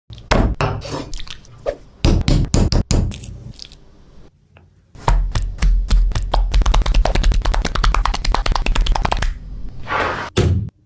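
Kitchen food-preparation sounds: a few sharp knocks, then a fast, even run of knife chopping on a cutting board lasting about four seconds, and a brief hiss near the end.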